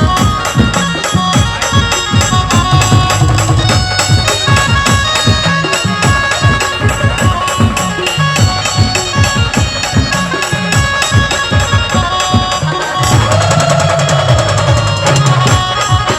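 Maharashtrian brass band music: a fast, even drum and jingling percussion rhythm under sustained melody lines, with one long held note that bends slightly near the end.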